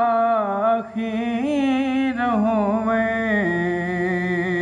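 Unaccompanied male voice singing a Punjabi naat, drawing out the end of a line in long melismatic notes. About three and a half seconds in it settles onto a long held lower note.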